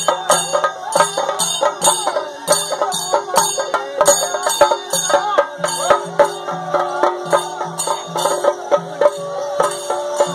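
Music with a fast, steady beat and a low repeating figure, with bending melodic lines over it.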